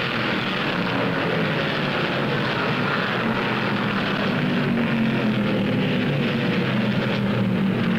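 A field of stock cars racing at speed, many engines running together in one steady, dense noise.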